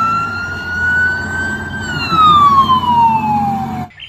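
Police car siren wailing: one slow rise in pitch, then a longer fall, cutting off suddenly near the end, over a low rumble.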